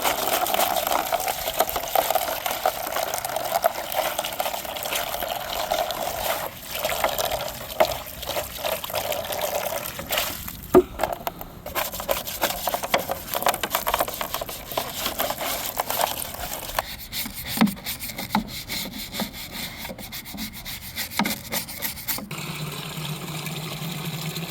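Scrubbing and rubbing mixed with running and splashing water while a poultry waterer is cleaned out and refilled. It turns to a run of quick scraping strokes, and a steady low hum comes in near the end.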